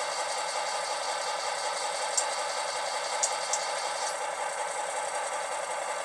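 LokSound 5 sound decoder in an Atlas MP15DC HO-scale model locomotive playing a diesel switcher idling with its air compressor running, through two small sugar-cube speakers, so it comes out thin with no deep bass. A few faint ticks about two and three seconds in.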